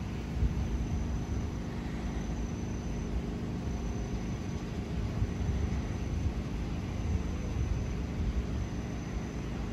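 A motor running with a steady low rumble and a faint hum.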